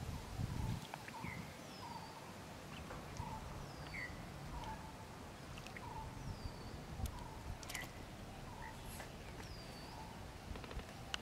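Wild birds calling repeatedly: a high downward-swooping whistle about every two and a half seconds, short rising notes, and a lower note about once a second. A brief low rumble comes near the start, and a couple of sharp clicks come later.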